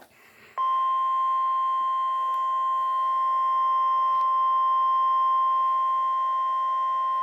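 Emergency Alert System attention tone: a single steady high tone near 1050 Hz, the NOAA Weather Radio warning alarm tone, starting about half a second in and held without a break. It signals that a severe thunderstorm warning follows.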